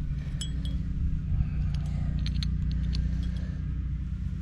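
Small hard clinks of pipe fittings and tools being handled, a few about half a second in and a cluster around two seconds in, over a steady low hum.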